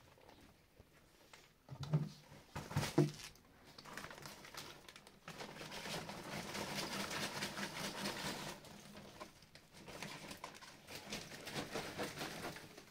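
A bag being handled and rustled at plastic buckets, a dense pattering rustle through most of the second half, after two short sharp knocks about two and three seconds in.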